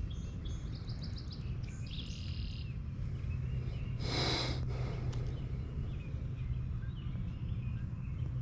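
Outdoor ambience by a pond: a steady low hum and rumble, birds chirping in quick repeated notes during the first couple of seconds, and a brief rushing whoosh about four seconds in.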